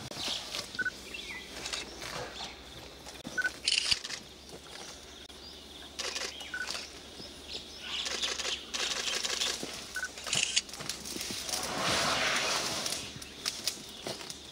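Irregular rustling, noisy bursts from a herd of wild Asian elephants moving through grass and bushes at close range, the longest about twelve seconds in. A short, high bird note repeats every few seconds.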